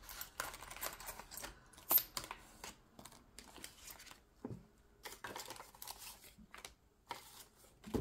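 Paper banknotes rustling and crinkling in irregular short bursts of handling as cash is counted out by hand, with one sharper click about two seconds in.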